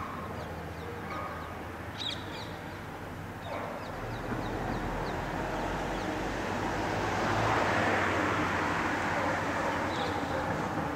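Outdoor ambience: birds calling in short high chirps, a cluster about two seconds in and a few more over the next seconds, over a steady rushing noise like distant traffic that swells toward the later part.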